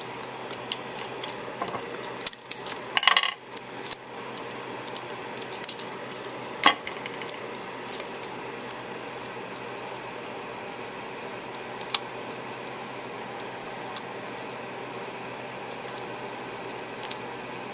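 Scattered small clicks and taps from handling card stock and adhesive foam dimensionals on a work table, with a brief louder crinkle about three seconds in. A faint steady hum runs underneath.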